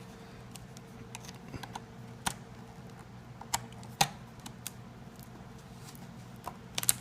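Irregular plastic clicks and snaps as the clip-on plastic back cover of a Lenovo IdeaPad P500 laptop is pried off its retaining tabs, with sharper snaps about two, three and a half and four seconds in and a quick cluster near the end.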